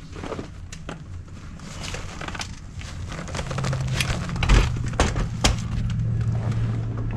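Scattered clicks, knocks and rustling from handling a carbon-fibre wheelchair's wheels as they are taken off and lifted into a car, with a low steady hum coming in about halfway.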